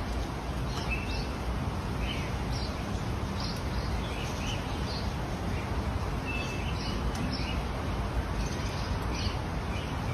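Short, scattered bird chirps over a steady background hiss.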